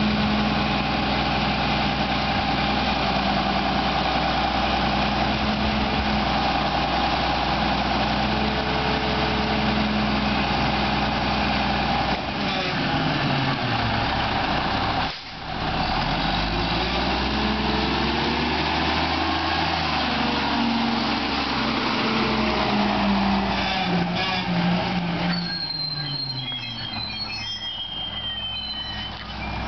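Mack garbage truck's diesel engine running as the tri-axle McNeilus rear-loader drives past. The engine pitch falls about halfway through, then climbs again. Thin high squeals sound near the end as the engine sound eases off.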